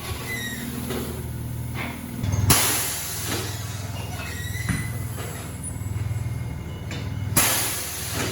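Tire shop workshop noise: a steady low machine hum with a few clanks, broken twice by a sudden loud hiss, about two and a half seconds in and again near the end.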